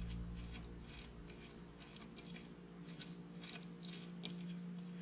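Faint small clicks and taps of a washer and plastic propeller being fitted by hand onto a small outboard motor's propeller shaft, over a low steady hum.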